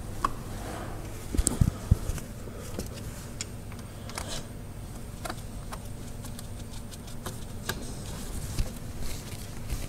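Hand tools at work on worm-drive hose clamps: a screwdriver tightening the clamps on a silicone boost hose, with scattered small clicks and knocks and a few louder knocks about one and a half to two seconds in, over a steady low hum.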